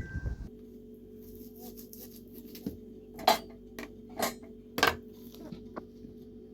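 Scattered sharp clinks and knocks of objects being handled, three of them louder than the rest, over a steady low hum that sets in about half a second in.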